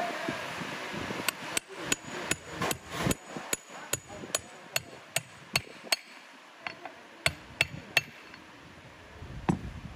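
Hammer striking a steel driver tube to tap a bearing down over the shaft into an aluminium gearbox flange. A run of sharp metallic taps, about two or three a second, then a short pause, three more taps and one last tap near the end.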